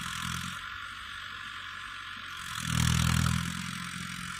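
Mahindra Arjun 555 DI Ultra-1 tractor's four-cylinder diesel engine running steadily under load while pulling a cultivator through the soil. Its sound swells louder for about a second, a little past halfway. A steady hiss lies over it throughout.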